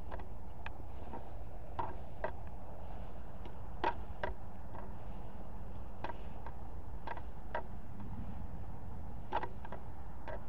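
Footsteps through tall grass and brush: irregular snaps and crunches, some in quick pairs, over a steady low hum.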